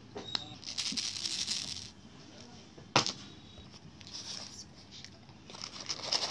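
A small glass jar of glass beads and a paper label being handled on a table: a rustling scrape about a second in, a single sharp click about three seconds in, then a sheet of lined paper rustling near the end.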